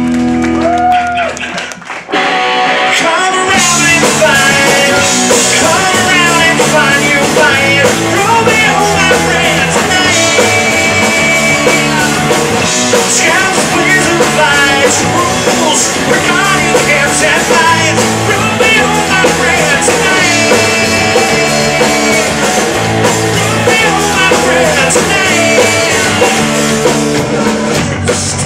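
Indie rock band playing live: electric guitars, electric bass and drum kit, with a sung vocal. After a brief drop about two seconds in, the full band comes in and plays on at full volume.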